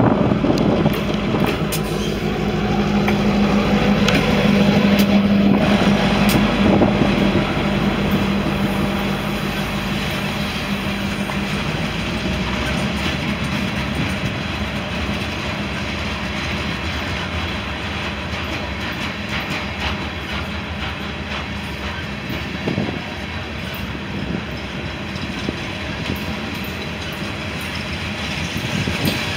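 A train passing on the rails: a steady rumble of wheels with repeated clicks over the rail joints. A steady low drone runs under it and fades out about twelve seconds in.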